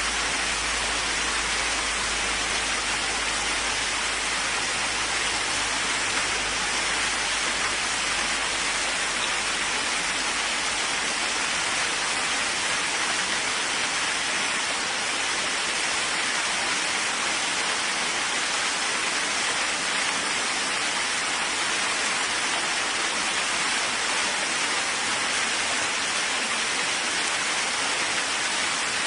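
Steady, dense rain falling as an even hiss with no separate drops standing out. A deep low rumble underneath dies away about halfway through.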